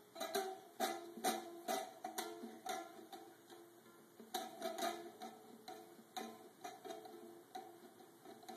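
Small toy acoustic guitar strummed by a toddler, its open strings struck over and over in an uneven, tick-like rhythm of about two to three strums a second, with a short pause near the middle before the strumming picks up again.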